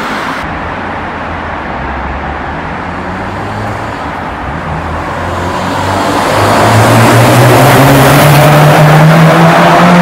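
Subaru WRX STI with a full-titanium HKS Super Turbo Muffler exhaust, its turbocharged EJ20 flat-four pulling under hard acceleration, echoing inside a road tunnel. The exhaust note grows much louder from about six seconds in, its pitch rising steadily as the revs climb.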